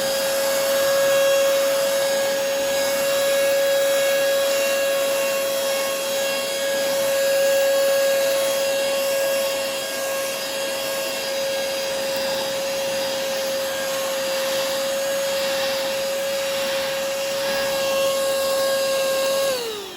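Yantu V01S cordless handheld car vacuum cleaner running with a steady motor whine and rushing air while its brush nozzle works over a dusty table. It is switched off right at the end, the whine falling in pitch as the motor winds down.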